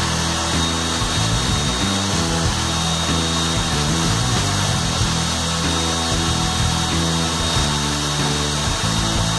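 Table saw running, with background music over it.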